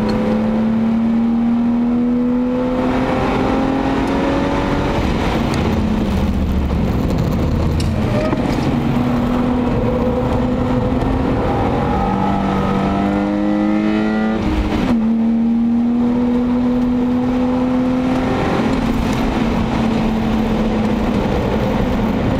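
BMW 525i E34's 2.5-litre 24-valve Vanos straight-six, heard from inside the cabin while driving hard on track. The engine note climbs steadily under throttle, drops back a few times and climbs again, with one sharp dip and recovery about 15 seconds in, over steady tyre and wind noise.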